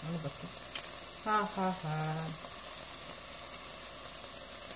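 Diced onion and yellow bell pepper frying in a pan, a steady sizzling hiss. A short voice sound cuts in over it about a second in.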